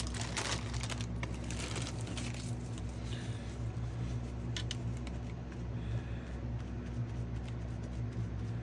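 Faint rustling and light dabbing of a wet wipe on a painted paper collage, blotting up excess shimmer spray, with a few small clicks. A steady low hum runs underneath throughout.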